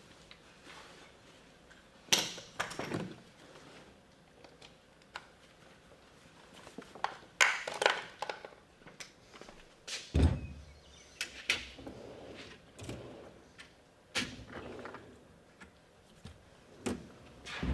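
A series of separate thunks, knocks and clatters, as of heavy tools and wood being handled and set down, with the loudest around 2, 7.5, 10 and 14 seconds in.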